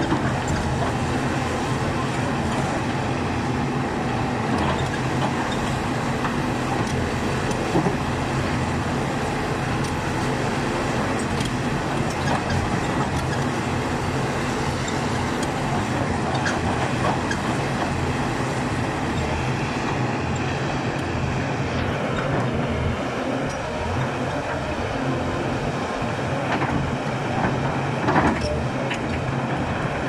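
Hyundai crawler excavator's diesel engine running steadily under digging load, with the bucket scraping earth and stones on the slope. A couple of sharp knocks stand out, one early and one near the end.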